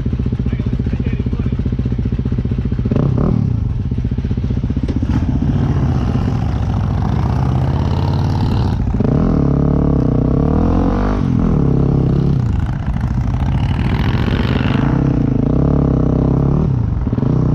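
Yamaha WR250X single-cylinder four-stroke engine, close to the microphone, idling with a quick rev about three seconds in. In the second half it revs up and drops back about three times as the bike pulls away and shifts up.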